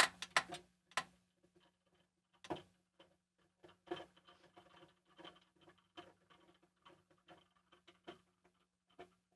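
Scattered light clicks and taps of hands handling small hardware and cables on a wooden tabletop, a quick cluster in the first second and sparser ones after, over a faint steady hum.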